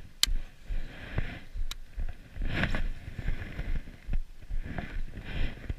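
Handling noise while a baitcasting rod and frog lure are handled and cast: clothing rustling against the camera and low knocks, with two sharp clicks, one just after the start and one a second and a half later.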